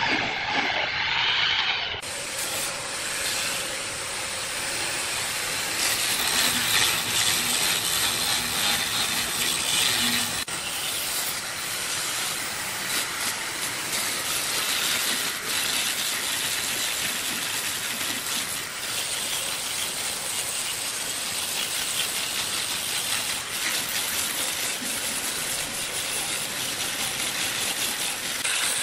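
Woodworking machinery running with a steady hissing rush and no clear tone, the sound changing abruptly twice, about two and ten seconds in.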